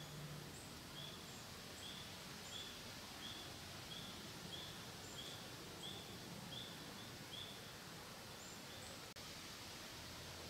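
Faint, regular short high chirps from a small animal, about three every two seconds, with a few higher chirps mixed in, over a steady outdoor hiss.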